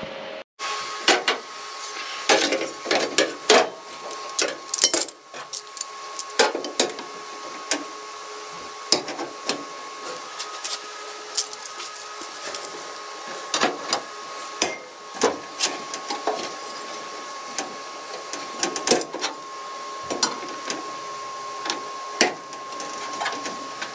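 Tools and sheet-metal parts knocking and clanking irregularly during car body repair work, over a steady high-pitched hum.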